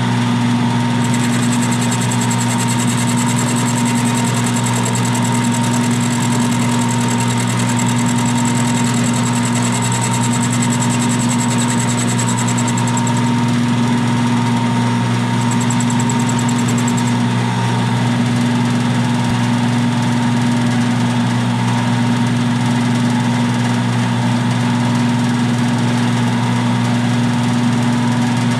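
Milling machine running with an end mill taking light cuts along the slot of a Stuart S50 steam engine casting: a steady machine hum with a thin high whine that stops about thirteen seconds in and returns briefly around sixteen seconds.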